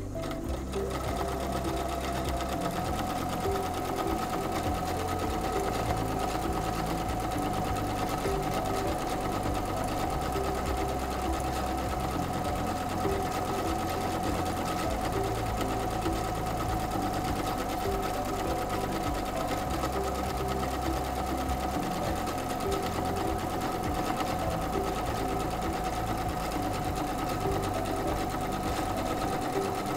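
SINGER C430 computerized sewing machine running steadily, stitching a one-step buttonhole with its buttonhole foot: a steady motor whine over rapid needle chatter.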